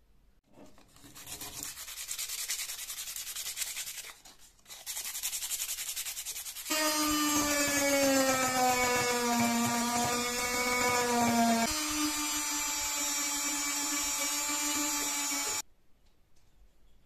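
Rotary tool with a small sanding drum sanding old paint off a wooden bicycle-pump handle. A rasping sanding noise, broken briefly about 4 s in, gives way about 7 s in to a louder steady motor whine. Its pitch dips slightly, steps up about 12 s in, and cuts off suddenly near 16 s.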